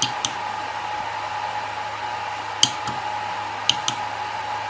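Steady whir with a faint whine from the cooling fans of a TronXY P802 3D printer that is switched on and idle. Short, sharp clicks come in pairs three times as its control-panel buttons are pressed to scroll the menu.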